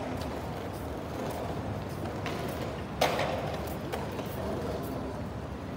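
Outdoor urban ambience of a busy plaza: a steady low background rumble with faint scattered clicks, and one sharp knock about three seconds in.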